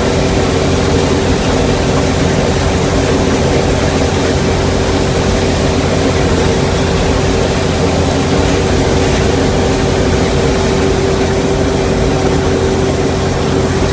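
Combine harvester running steadily under load: a loud, even machine noise from the engine and threshing works, with a steady hum on top.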